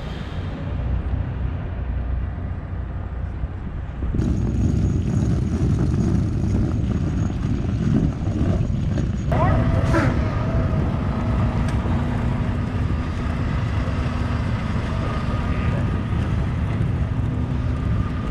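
Semi-truck diesel engine running as the rig maneuvers into angled parking, a steady low rumble that gets louder about four seconds in. About nine seconds in its pitch rises, then holds steady.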